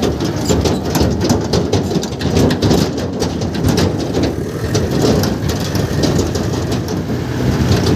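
A vehicle engine running under a dense, steady clatter of rattles and knocks.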